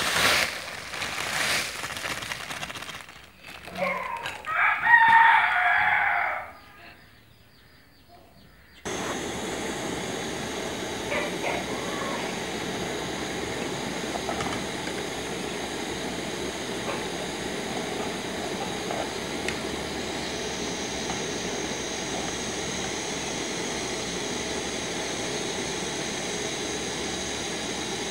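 A plastic packet crinkles as fine vermicelli is emptied into a pot of boiling milk, then a rooster crows loudly for about two seconds. After a short gap a steady hiss runs on.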